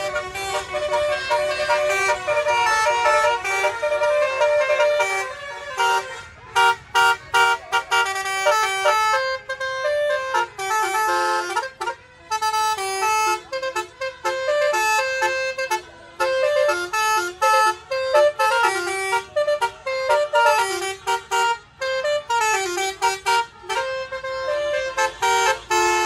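Tour bus 'telolet' multi-tone horn (Basuri type) playing tunes: loud horn notes stepping up and down in quick melodic phrases, broken by short gaps between bursts.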